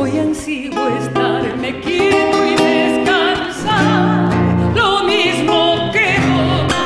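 A woman sings an Argentine folk bailecito in long, held notes with a wavering vibrato. A man accompanies her on acoustic guitar.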